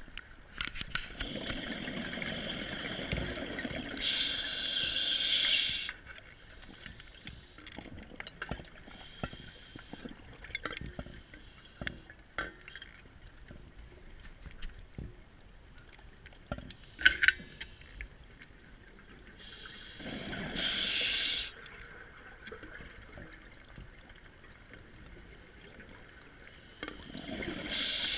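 Scuba diver breathing through a regulator underwater: rushing exhaled bubbles and hissing inhaled air, in three bouts near the start, about two-thirds of the way in and at the end. Quiet water with faint scattered clicks in between, one sharper click about 17 seconds in.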